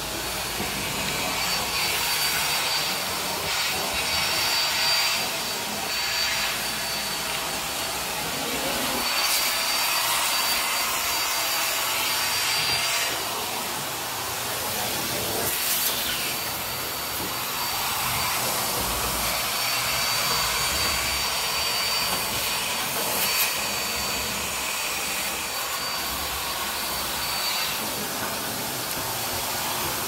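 Commercial upright vacuum cleaner running steadily as it is pushed over carpet, with a thin high motor whine that comes and goes.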